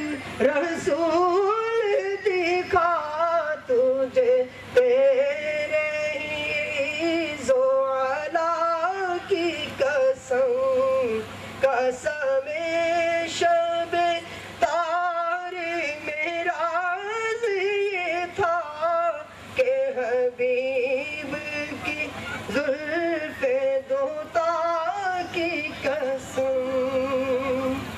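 A single voice singing a slow melody in long held, wavering notes, phrase after phrase with short breaks between.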